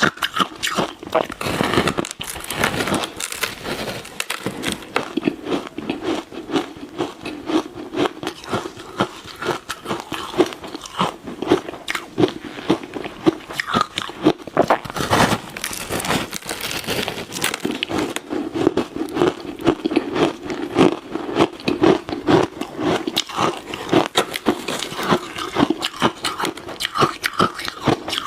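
Close-miked biting and chewing of ice: a steady run of sharp crunches and cracks as the pieces break between the teeth.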